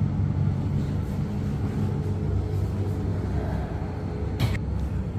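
Steady low rumble and hum of the bubble tram capsule running along its track, heard inside the cabin. A single sharp click comes about four and a half seconds in.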